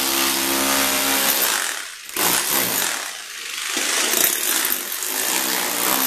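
Electric rotary hammer in chisel mode chipping a raised high spot out of a concrete floor. It runs, stops briefly about two seconds in, then starts again.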